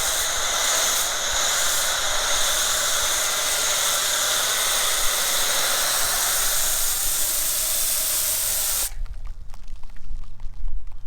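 Foam cannon on a Kranzle 1622TS pressure washer spraying soap foam: a steady, loud hiss that cuts off suddenly about nine seconds in as the trigger is let go. After it, only low, uneven thumps remain.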